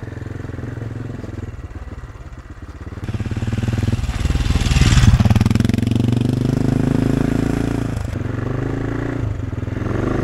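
AJP PR7's single-cylinder engine running at low speed on a gravel track. About four seconds in the bike rides close past, getting loudest with gravel crunching under the tyres, then carries on steadily.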